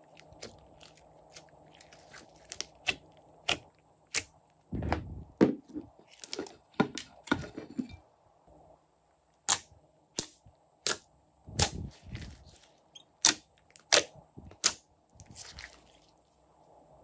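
Hands squishing, pulling and stretching thick glossy slime, making a string of sharp sticky clicks and pops with a few deeper wet squelches, and a short pause about halfway.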